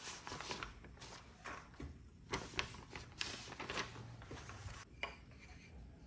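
Sheets of paper rustling and strips of rosewood and maple being handled, with light knocks of wood on a wooden bench. The rustling is busiest in the middle, about two to four seconds in.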